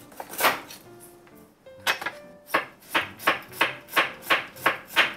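Kitchen knife slicing garlic cloves on a wooden cutting board: one stroke about half a second in, then from about two seconds in a steady run of knife strokes, about three a second. Light background music under it.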